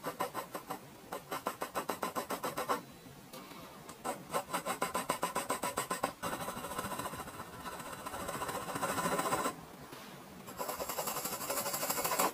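HB graphite pencil scratching across drawing paper in rapid back-and-forth hatching strokes, about seven a second, in several runs broken by short pauses.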